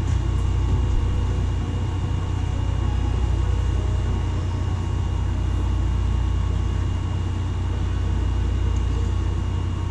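A steady low hum with a faint hiss above it, unchanging throughout: a room's background machine noise.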